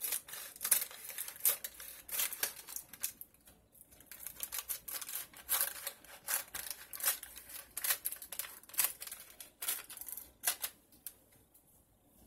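Kitchen scissors snipping through a plastic oven-cooking bag: a run of irregular crisp snips and crinkles that stops near the end.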